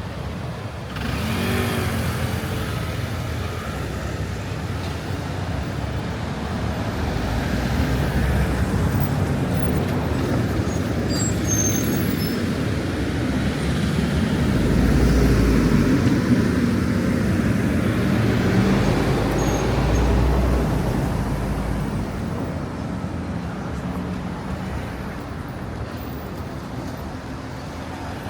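Street traffic: a steady wash of passing cars, with a heavier vehicle's low rumble swelling past around the middle and then fading.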